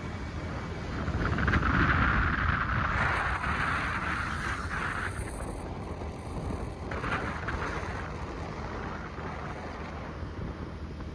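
Wind rushing over the microphone on a moving motor scooter, with a low rumble from the ride underneath. The rush swells for a few seconds about a second in, then settles.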